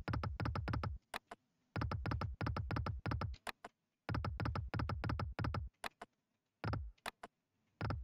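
Online slot game's reel-spin sound effect: runs of rapid electronic clicking, each lasting up to a couple of seconds, repeating with short gaps as the reels are spun again and again.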